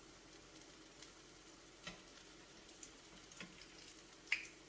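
Potato latkes frying in shallow oil in a skillet: a faint, steady sizzle with scattered crackles and pops, the sharpest near the end.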